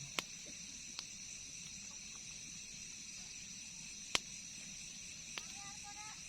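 Steady high-pitched chorus of crickets and other night insects, with four sharp clicks, the loudest about four seconds in.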